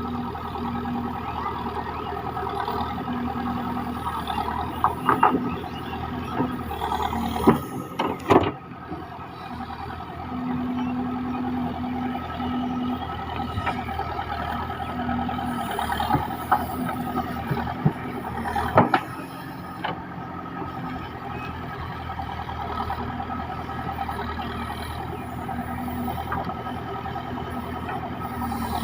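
JCB 3DX backhoe loader's diesel engine running steadily while the machine works, with a tone that comes and goes as the load changes. A few sharp clanks at about seven, eight and nineteen seconds in.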